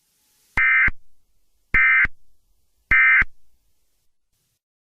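Emergency Alert System SAME end-of-message code: three short digital data bursts about a second apart, the signal that closes an EAS alert.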